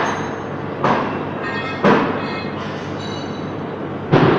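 Loud metallic clanks, four in all, spaced unevenly, with a faint high ringing after some of them, over steady workshop noise.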